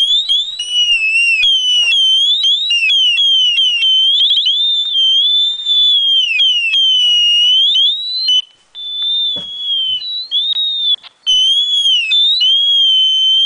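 Someone whistling a tune: a clear, high whistled melody that glides up and down in short phrases, with brief breaks about 8 and 11 seconds in, ending on a long held note.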